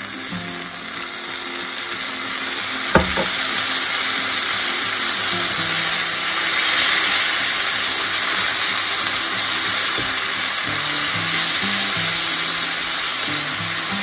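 Soy sauce and oil sizzling in a hot nonstick frying pan as pieces of wheat gluten, shiitake mushrooms and bamboo shoots are stir-fried. The sizzle swells louder toward the middle, with one sharp knock on the pan about three seconds in. Background music plays under it.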